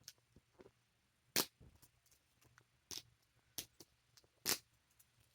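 Scissors snipping at toy packaging: several sharp, separate snips at uneven intervals, the loudest about a second and a half in.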